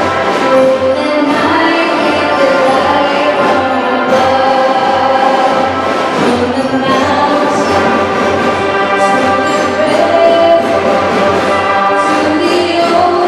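Student mariachi ensemble of violins, guitars and trumpets playing, with a girl singing lead into a microphone over the band through the gym's PA.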